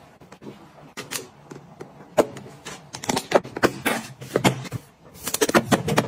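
Plastic food storage containers and tongs being handled: quick clicks, taps and knocks in irregular clusters as food is packed into a plastic box and a container is set onto a refrigerator shelf.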